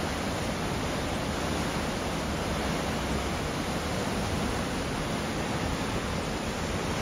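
Okere Falls, white water pouring over the falls in a steady, even rush with no breaks.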